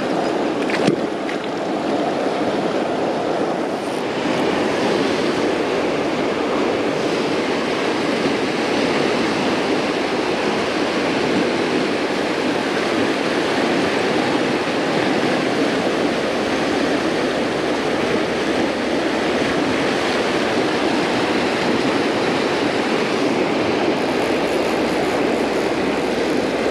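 Steady rushing of a river rapid, whitewater pouring over rocks close by. A brief knock about a second in.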